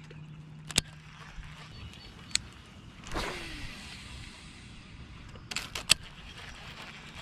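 Cast with a baitcasting reel: about three seconds in, the spool whirs briefly and falls in pitch as line pays out. Near the end comes a quick cluster of sharp clicks as the reel is handled, with single sharp clicks earlier.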